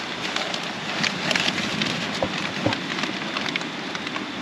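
Brown paper bag crinkling and rustling close up as a patty is unwrapped from it and eaten, a scatter of small crackles, busiest about a second in.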